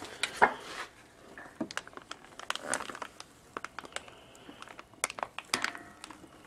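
Plastic packaging crinkling, with scattered light clicks and knocks from handling.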